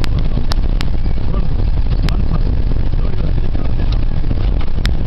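Minibus taxi's engine and road noise heard from inside the passenger cabin, a loud steady rumble, with several sharp knocks as the van jolts over rough, unpaved ground.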